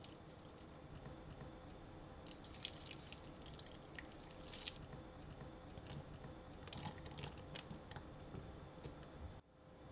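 Egg on rice paper sizzling softly in a pan, with short crackly pattering bursts as chili flakes and sesame seeds are sprinkled on, the loudest a little before and about halfway through.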